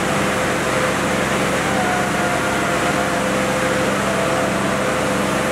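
John Deere 5310 and Swaraj 855 tractor diesel engines running hard under full load as the two tractors pull against each other in a tug-of-war, a steady drone over crowd noise.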